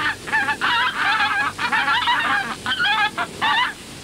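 Animal noises in a dense run of short, wavering, goose-like calls, about two a second with brief gaps between them.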